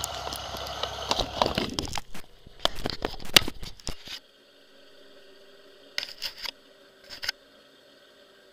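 Handling noise on the camera: rubbing, crackling and sharp knocks for about four seconds. After that a faint steady hum of an idling engine, with a few more taps about six and seven seconds in.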